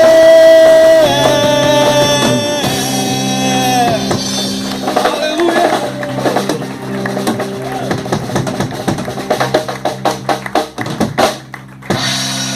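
Live worship band of electric guitar, bass guitar and drum kit playing the end of a song: held notes over a steady bass, then a fast run of drum hits and cymbals in the second half, ending on a held chord.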